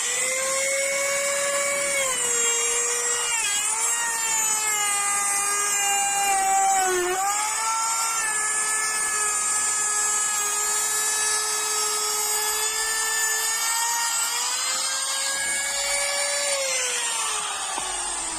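Electric router with a grooving bit running at high speed and cutting a groove into a wooden sash rail: a steady high whine whose pitch dips briefly about three and seven seconds in as the bit bites, then falls away near the end as the tool is switched off and spins down.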